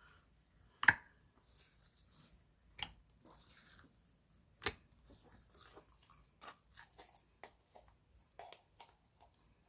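Slime and its plastic container being handled: a sharp plastic clack about a second in, two more knocks, and faint sticky crackles and small clicks as the slime is pulled and worked.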